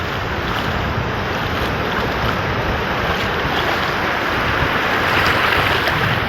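Wind buffeting the microphone over the rush of surf on a beach, a steady noise that swells slightly near the end.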